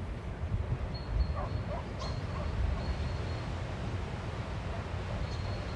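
A dog whimpering faintly a few times, about one and a half to two and a half seconds in, over a steady low rumble of outdoor noise.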